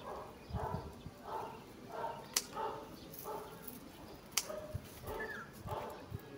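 A dog barking over and over, a short bark about every half second to second. Two sharp clicks stand out, one a little before the middle and one later on.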